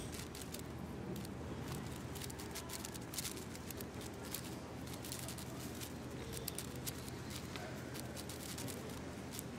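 AoShi WRM 6x6 speed cube being turned fast during a solve: a continuous run of quick, irregular plastic clicks and clacks as its layers snap round.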